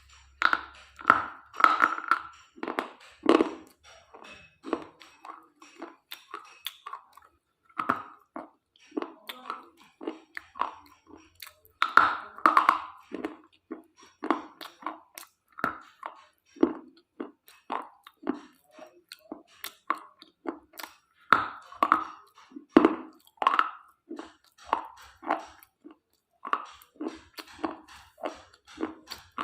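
Close-up chewing and crunching of broken slate pieces: rapid, irregular crunches, two or three a second, in runs with short pauses.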